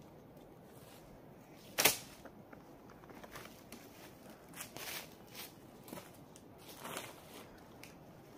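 Tent poles being handled while a small dome tent is pitched: one sharp click about two seconds in, then lighter clicks, taps and rustles of tent fabric and dry leaves underfoot.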